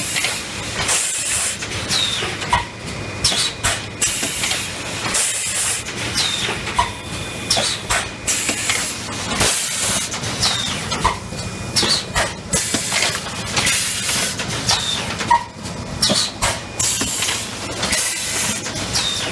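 Fully automatic PET stretch blow moulding machine running: loud hisses of compressed air venting recur every couple of seconds over a steady mechanical clatter, with sharp clacks of the mould and transfer mechanism.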